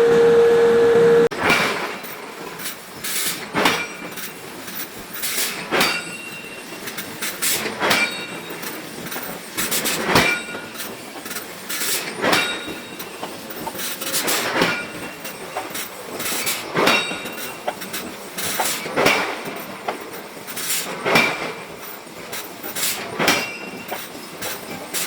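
Hammer blows on iron during forging, roughly one a second, each a sharp metallic clank with a brief ring. Before them, a loud steady tone cuts off abruptly about a second in.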